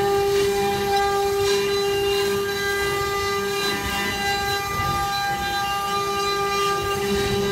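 Multi-spindle CNC wood router running, its spindle motors giving a steady high-pitched whine while the bits cut into solid timber with a continuous rough cutting noise underneath.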